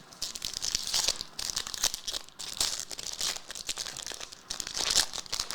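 Plastic card packaging crinkling and tearing as trading-card packs and sleeves are handled and opened: an irregular, continuous crackle with louder rips.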